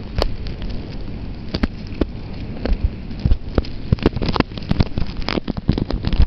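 Wind buffeting the camera microphone: a rough, low rumble broken by irregular crackles and knocks.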